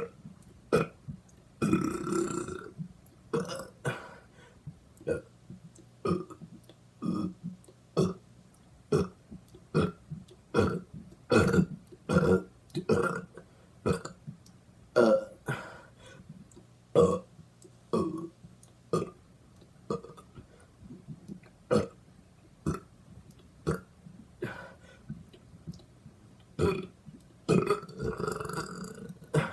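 A person burping on purpose, over and over, about one short burp a second, with a longer drawn-out burp about two seconds in and another near the end.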